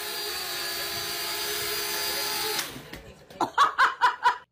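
Small quadcopter drone hovering, its motors and propellers giving a steady whining hum. After it cuts off, a quick run of about five short, loud cries follows.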